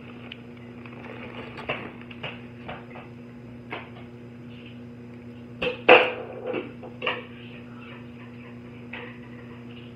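Paper microwave popcorn bag rustling and crinkling as popcorn is shaken out of it into a bowl, with scattered knocks and clatters, loudest about six seconds in. A steady low hum runs underneath.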